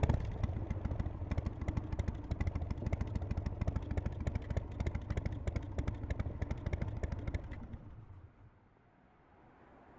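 Harley-Davidson Softail FXSTC's Evolution V-twin engine running with a rapid ticking clatter, then dying away about eight seconds in.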